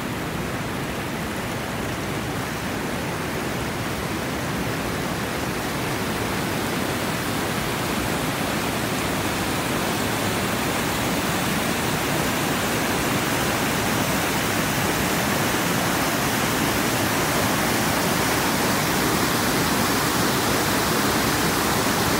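Storm-swollen creek in flood, its muddy water rushing over a low weir and down rocky rapids: a steady, even rush of water that grows gradually louder.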